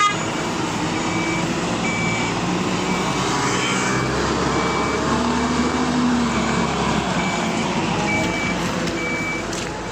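Lorry engine running in reverse gear while its reversing alarm beeps steadily, about three beeps every two seconds.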